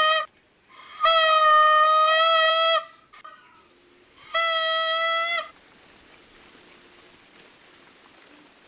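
A toy horn made of a rolled coconut leaf, blown in three toots on one steady pitch: a blast ending just after the start, a long one of about two seconds beginning about a second in, and a shorter one of about a second near the middle.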